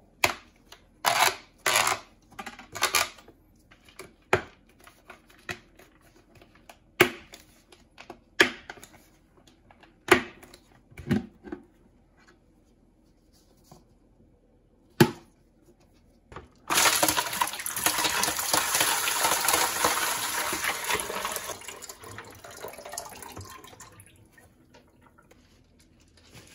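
The snap-on plastic lid of a five-gallon bucket being pried off, giving about ten sharp snaps and cracks as its tabs pop free. About two-thirds of the way in, turkey brine starts pouring from the bucket into a kitchen sink, a loud, steady splashing that fades away over several seconds.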